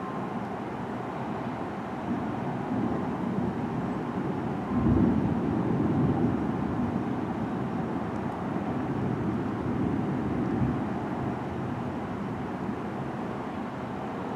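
Thunder rumbling: it builds about two seconds in, comes loudest suddenly around five seconds in, and rolls on for several seconds before fading back to a steady low background.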